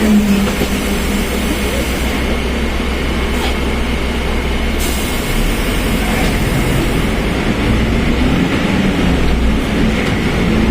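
Mercedes-Benz OF1721 BlueTec 5 diesel bus under way, with steady engine and drivetrain noise. A low hum shifts lower about five seconds in. The differential is described as howling loudly.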